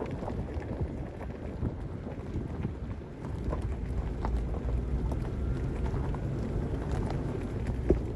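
Strong wind buffeting the microphone: a low rumbling noise that grows stronger about three seconds in, with a single sharp knock near the end.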